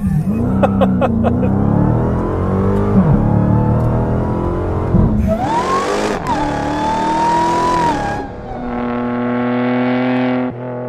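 Sports car engine sound effect revving up and falling back several times as if through gear changes. About five seconds in, a high squeal rises and holds over a hiss for about three seconds, then the engine settles to a steady idle near the end.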